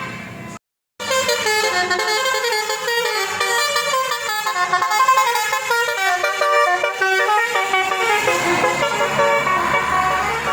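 Bus 'basuri' telolet horn, a multi-trumpet musical air horn, playing a tune of quickly changing notes. A brief silent break comes about half a second in.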